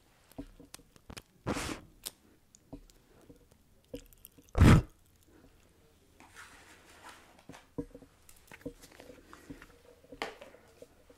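Two hard puffs of breath blown at a candle straight into a close microphone, the first about a second and a half in and a louder one a little before the middle. Between and after them, Pop Rocks candy crackles in the mouth as faint scattered pops.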